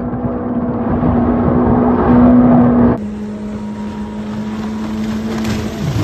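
Engine of a Corvette-bodied jet boat running at speed, a steady drone that steps up slightly in pitch about two seconds in. About halfway through, the sound cuts to a different recording of the engine at a slightly lower pitch and level.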